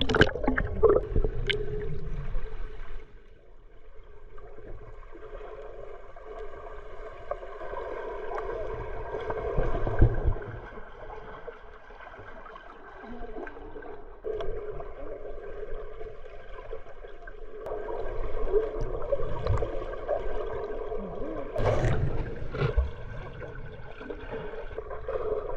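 Muffled water sloshing and gurgling with a faint steady drone, broken by a sharp knock about ten seconds in and another bump about twenty-two seconds in.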